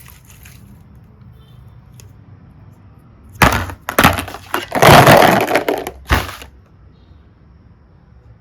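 Something brittle cracking and crunching close up: a run of sharp cracks about three and a half seconds in, then a longer crunching stretch, ending with one last crack.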